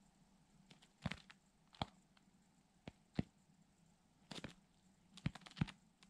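Eurasian magpie pecking and tearing at a frozen hide on snow: irregular sharp taps, some single and some in quick clusters.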